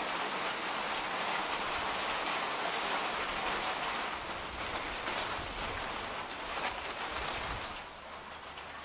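Steady rain, an even hiss of drops falling on the lake, easing to a softer hiss near the end.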